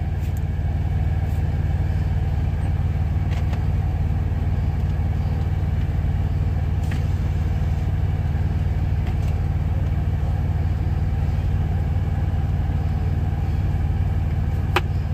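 Semi truck's diesel engine idling steadily, a low rumble heard from inside the sleeper cab. A few faint clicks from a knife working a potato, the sharpest near the end.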